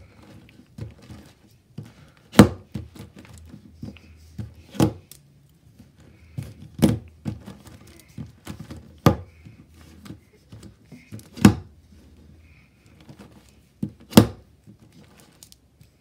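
Plastic 3x3 Rubik's cube layers being pushed round one at a time by a single fingertip, each turn ending in a sharp clack, about every two to two and a half seconds, with softer clicks between.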